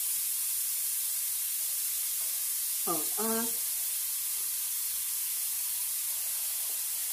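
Chopped onion sizzling steadily in hot olive oil in a pan, starting to sweat. A short bit of voice cuts in briefly about three seconds in.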